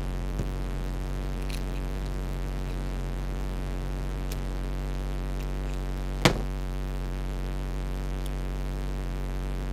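Steady electrical mains hum, with a few faint ticks and one sharp click about six seconds in from small toy-car parts being handled.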